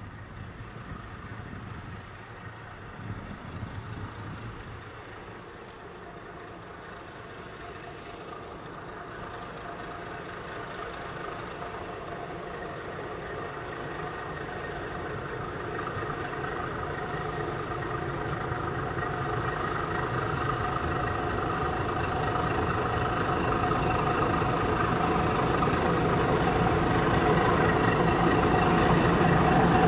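Diesel shunting locomotive's engine running and growing steadily louder as it approaches.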